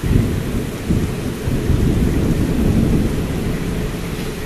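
Heavy rain pouring down in a downpour, with a loud low rumbling noise that sets in suddenly at the start and runs on steadily.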